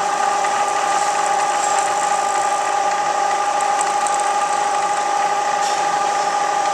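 Milling machine running at a steady speed: an even mechanical whine made of several steady tones, with no change in speed.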